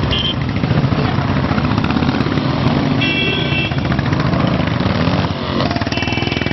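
Royal Enfield single-cylinder motorcycles running and revving as they ride past in circles, with a steady low, pulsing beat. Two short high-pitched beeps sound over it, about three seconds in and near the end.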